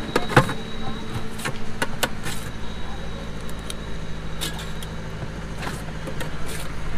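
Steady low motor hum with a series of sharp clinks and knocks over it, the loudest about half a second in.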